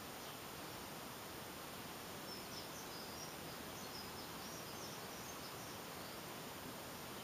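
A small bird twittering faintly, a run of short high chirps starting about two seconds in and lasting some three seconds, over a steady hiss.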